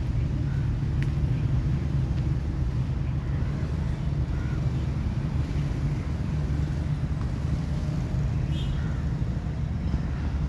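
Wind buffeting the microphone outdoors: a steady low rumble, with a few faint high chirps now and then.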